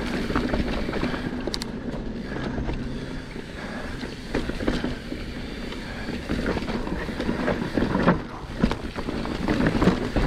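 Mountain bike rolling over a rocky dirt trail: tyres crunching on dirt and stone, with the bike knocking and rattling over bumps that come thicker in the second half. Wind buffets the microphone.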